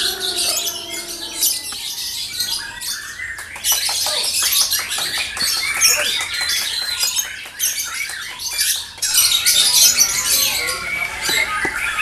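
Caged lovebirds singing over one another in long, rapid, high-pitched chattering trills and squawks, with a brief lull a little past the middle.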